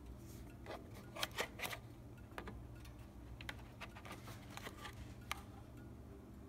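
Small clicks and taps of hands and the phone being handled around a car's under-hood fuse box and battery terminal wiring. A quick cluster of clicks about a second in is the loudest, with scattered single ticks after it, all over a steady low hum.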